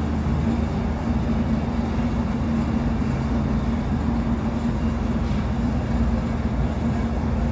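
A machine running steadily in the shop: a constant low hum over an even rushing noise.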